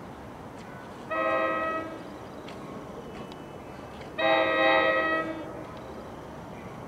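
An approaching commuter train's horn sounds two blasts: a shorter one about a second in, then a longer, louder one about four seconds in.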